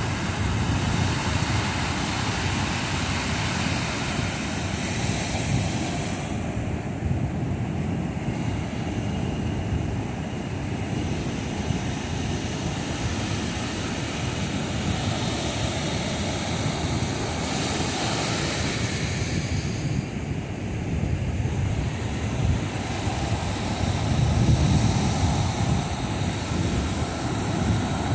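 Ocean surf breaking and washing up the sand in a steady rush, with wind rumbling on the microphone.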